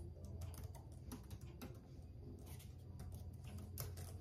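Faint typing on a computer keyboard: irregular key clicks over a steady low hum.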